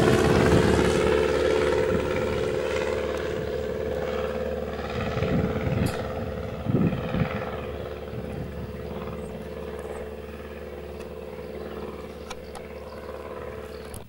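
Single-engine light aircraft's piston engine and propeller droning steadily in flight, gradually fading, with two brief low thumps about halfway through.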